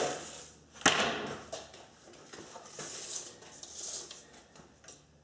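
A steel tape measure being run out across a wooden screen-door frame: one sharp click about a second in, then soft scraping and rustling of the blade.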